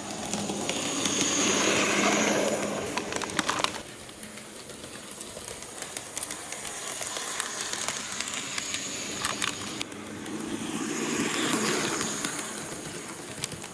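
KATO HO-gauge EF81 electric locomotive model running on track, its motor and gears humming and growing louder twice as it passes close. Sharp clicks sound as the wheels cross rail joints and turnouts, in a cluster a few seconds in and again near the middle.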